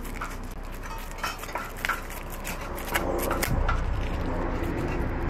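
Scattered light clinks and knocks of cups, utensils and containers being handled at a drinks-stall counter, over a steady low hum.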